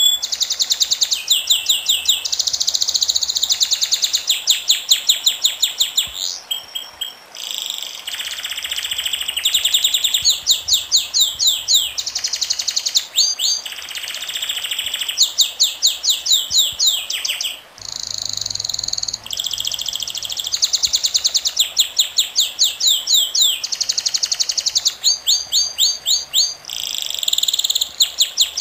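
Songbird singing a long string of fast trilled phrases, each a rapid run of repeated high notes, one phrase after another with short pauses between.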